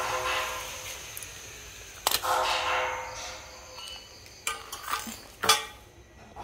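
A pitched hum that fades over the first second and comes back briefly about two seconds in, with a sharp click at its start, then a few sharp clicks and knocks of hard objects, the loudest about five and a half seconds in.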